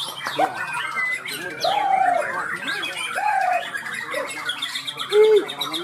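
Several caged songbirds singing at once, white-crowned shamas (murai Borneo) among them: busy chattering and trilling notes over a few low, arching whistles, the loudest one near the end.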